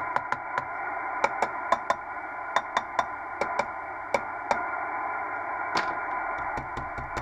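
Receiver noise from the Kenwood TS-700SP transceiver's speaker: a steady hiss, cut off above about 2.5 kHz, with faint steady tones in it. It is broken by irregular sharp clicks and crackles, about two or three a second.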